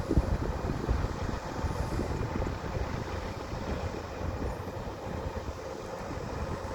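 Old Komatsu bulldozer's diesel engine running steadily under load as it works dirt, a low rumble with a brief knock just after the start.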